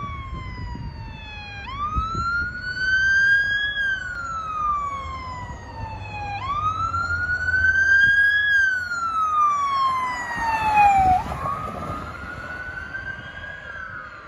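Police car siren on a wail: a tone that rises and then slowly falls, repeating about every five seconds.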